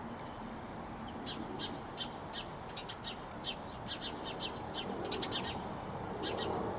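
Small birds chirping: a quick series of short, high chirps starting about a second in and going on at several a second.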